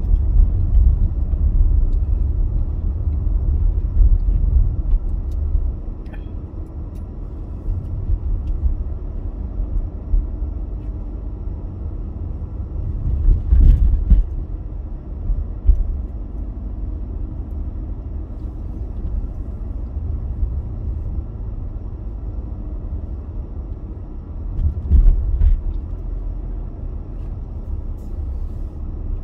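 Car driving slowly on town streets, heard from inside the cabin: a steady low engine and road rumble. There are a few louder bumps from the road, one about halfway through and another near the end.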